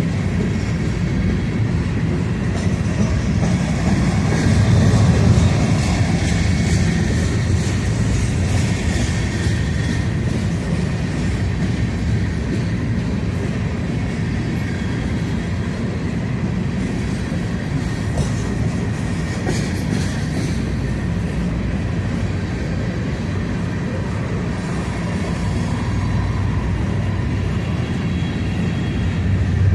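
Empty covered grain hopper cars of a long freight train rolling past at low speed: a steady rumble with wheels clicking over the rail joints.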